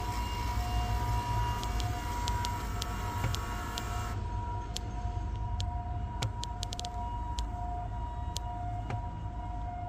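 LG refrigerator's ice ball maker running in demo mode: a steady low hum with scattered light clicks, and two steady high tones that alternate slowly, like a two-tone siren.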